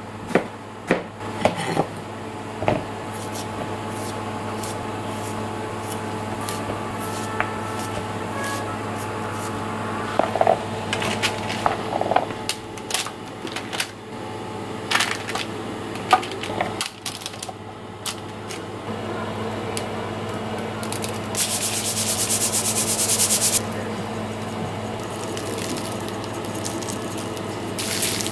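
A kitchen knife chopping through eggplant onto a plastic cutting board in a few quick strokes at the start. Then scattered knocks and rustles as cut vegetables are handled on a parchment-lined baking tray. Near the end comes a steady rasping hiss for about two seconds, over a steady low hum.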